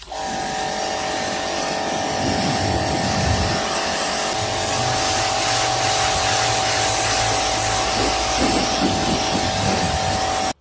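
Electric pressure washer running: a steady motor-and-pump whine and buzz under the hiss of the water jet spraying onto stone. It starts suddenly and cuts off suddenly, as the trigger is squeezed and released.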